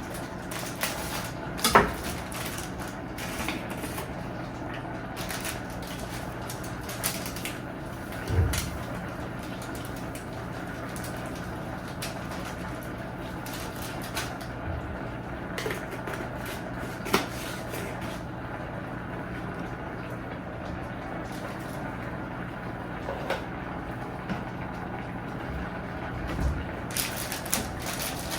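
Scattered clicks and knocks of kitchen containers and utensils being handled, over a steady low hum. A sharp click comes just under two seconds in and a dull thump about eight seconds in.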